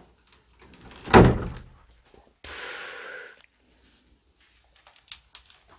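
Wooden door in an abandoned house being pushed open, with one loud thump about a second in, followed by a softer noise lasting about a second.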